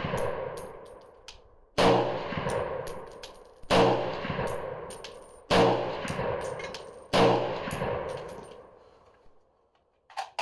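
Springfield Armory M1A Tanker semi-automatic rifle firing PPU 7.62x51 rounds: four shots about two seconds apart. Each report rings out for over a second, with bright metallic clinks just after it.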